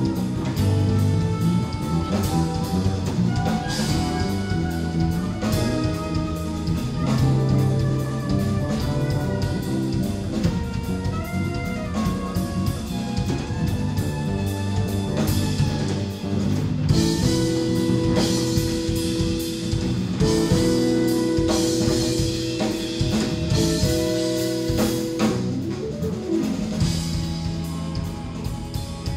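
Live jazz-rock fusion band playing, with drum kit, electric bass and electric guitar. Long held chords come in past the middle of the passage.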